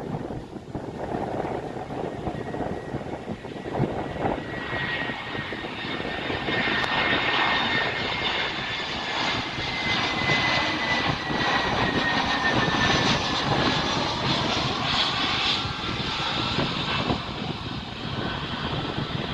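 Boeing 777 jet engines running: a steady rumble with a high whine that comes up about four seconds in and slowly falls in pitch.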